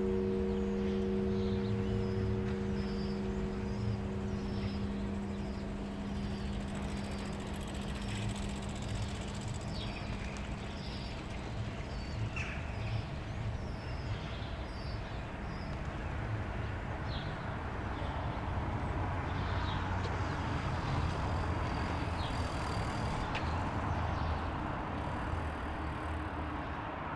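The hum of the church's last bell stroke dying away over the first several seconds, over steady road traffic that swells past the middle. High chirps repeat about twice a second in the first half, from a bird.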